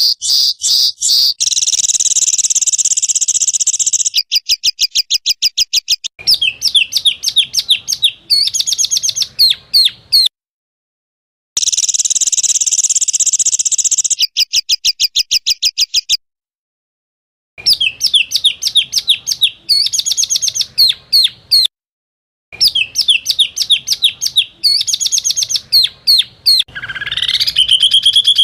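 Recorded songbird calls edited into a looping training track. Rapid strings of sharp chirps, buzzy trills and fast clicking rattles, in segments that repeat and break off abruptly into brief dead silence, with a rising whistle near the end.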